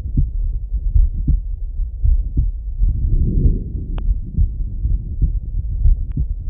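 A man's slow heartbeat heard through a Littmann stethoscope: steady, deep low thumps about once a second.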